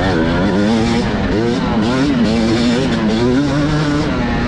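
TM Racing 250 motocross bike's engine, heard from on board. It revs up and down with the throttle for about two seconds, then holds steadier, slowly climbing revs.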